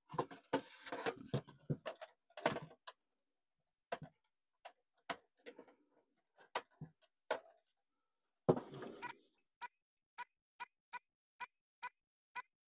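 Scattered small knocks and handling clatter on a workbench. From about two-thirds of the way in comes a run of evenly spaced sharp clicks, about two a second, from a small push button being pressed over and over.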